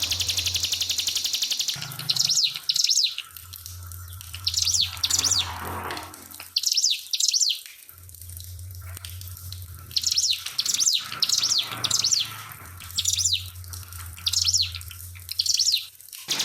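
Ciblek pinus, a prinia, singing in repeated short, sharp high chirping phrases, mostly in pairs, over trickling water. The phrases start about two seconds in.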